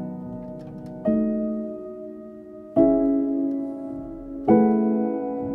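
Slow, gentle piano music: three sustained chords, struck about a second, three seconds and four and a half seconds in, each ringing on and fading.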